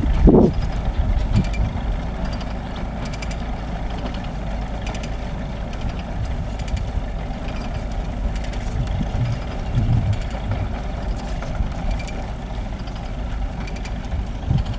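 Zetor 7011 tractor's four-cylinder diesel engine running steadily.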